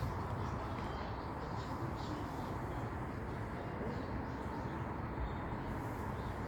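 Steady outdoor background noise, a low rumble, with faint bird chirps scattered through it.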